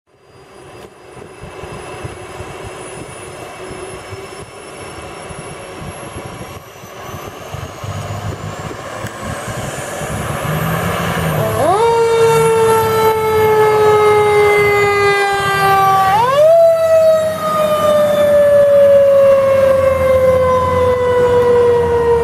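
A fire department heavy rescue truck's engine running as it pulls out of the station bay. About halfway in, its siren starts to wail: a quick rise in pitch and a slow fall, twice.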